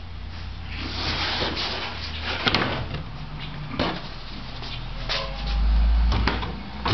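A wooden slide table being lifted off a saw and set aside: scraping and sliding, several sharp knocks, and a loud low rumble about five seconds in.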